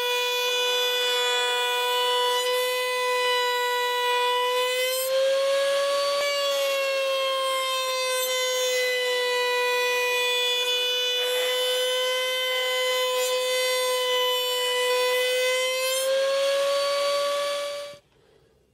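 Router spinning at high speed under a tilting router table with a steady, high-pitched whine, its bit cutting a 45-degree mitre along an acrylic sheet; the pitch sags and recovers slightly a few times as it cuts. The sound cuts off abruptly near the end.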